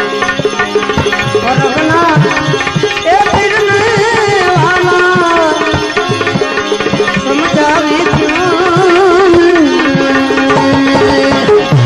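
Devotional bhajan music: a tabla keeps time under a melodic lead whose notes bend and waver.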